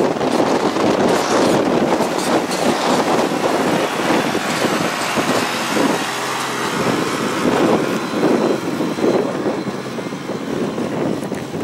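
Toyota Land Cruiser 80 driving close past on a rocky track and then away, its engine running under rough wind noise on the microphone. The sound eases a little near the end as the vehicle pulls away.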